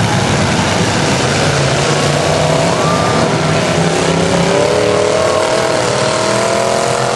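Demolition derby cars' engines running and revving together under a dense wash of noise, one engine's pitch climbing gradually in the second half.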